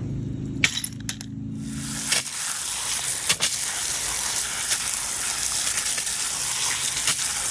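A garden hose spray nozzle starts about a second and a half in and sprays a steady stream onto a plastic basket of rusty steel bolts, nuts and washers, rinsing off the Evapo-Rust rust remover. Before the water starts there are a few clinks of the metal parts and a low hum, which stops about two seconds in.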